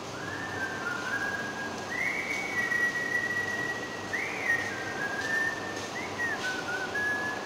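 A person whistling a slow tune: long held notes with short slides between them and a quick upward swoop about four seconds in, over a steady background hum.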